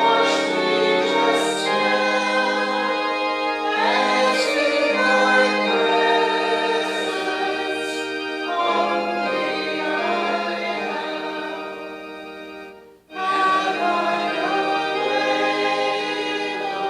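Congregation singing a hymn together to organ accompaniment, the organ holding steady chords under the voices. About three-quarters of the way through, the music stops for a moment between phrases, then the singing and organ start again.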